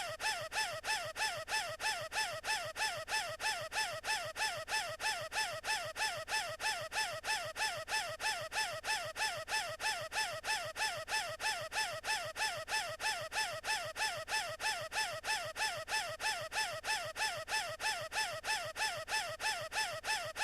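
An animated character's squeaky, gasping wheeze, one short clip looped over and over at about two to three wheezes a second, like someone who cannot get enough air.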